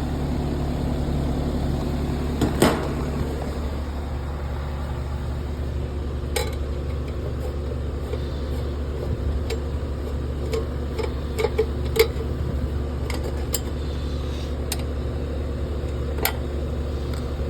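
A steady low machine hum runs throughout, with a few sharp clicks and knocks scattered over it, the loudest about two and a half seconds in and again near twelve seconds.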